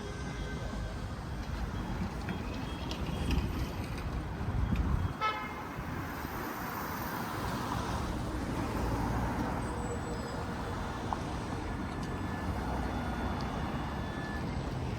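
Street traffic passing, with a short vehicle horn toot about five seconds in.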